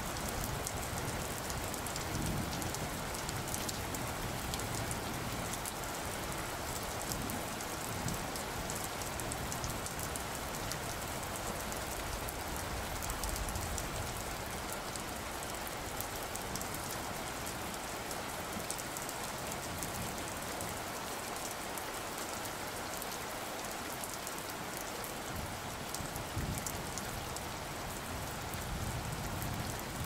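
Steady rain falling, a dense even hiss with a fine patter of drops. A low rumble swells near the end.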